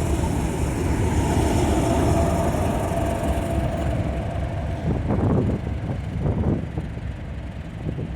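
Pair of Class 37 diesel-electric locomotives with English Electric engines running, a deep steady rumble with a humming tone that fades about three and a half seconds in as the higher sound dies away. Gusts of wind buffet the microphone in the second half.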